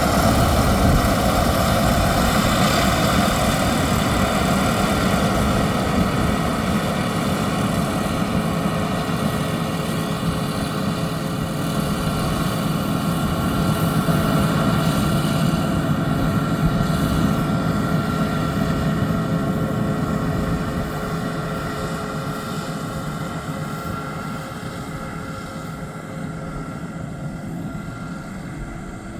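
Yanmar YH6115 six-row combine harvester running steadily while harvesting rice: a constant engine drone with steady whining tones from the threshing machinery. From about two thirds of the way through it grows gradually fainter.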